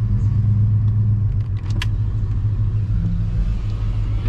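Chevrolet Suburban driving, a steady low engine and road rumble with one sharp click about two seconds in.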